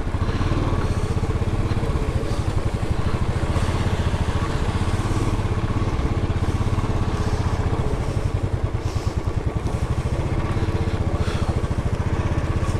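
Royal Enfield Classic 350's single-cylinder engine running steadily while the motorcycle is ridden.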